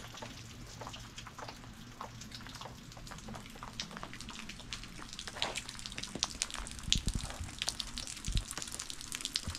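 Rain dripping: many scattered drops tapping on wet leaves and ground, coming thicker in the second half, over a faint steady low hum.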